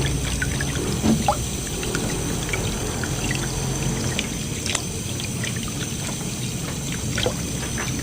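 Water pouring and trickling while small fish are rinsed clean, with scattered light clicks and splashes from handling them.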